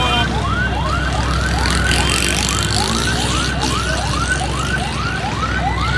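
Emergency vehicle siren in a fast yelp, a rising sweep repeated about three times a second, over a steady background of noise.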